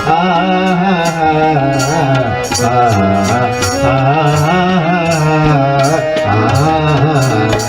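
Newar bhajan devotional music between sung lines: a flowing melody carried over a steady percussion beat.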